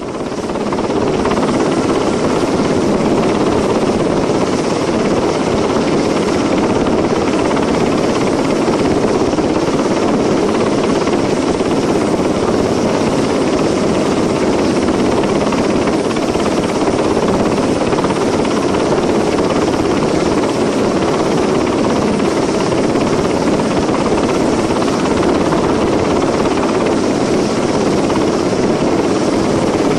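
Boeing Vertol H-46 Sea Knight tandem-rotor, twin-turbine helicopter hovering with a slung cargo load: a loud, steady rotor and turbine noise with no breaks.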